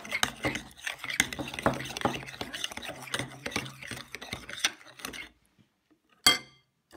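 Utensil stirring and scraping in a bowl of homemade slime, a dense run of small clicks and scrapes that stops about five seconds in. A single sharp knock follows about a second later.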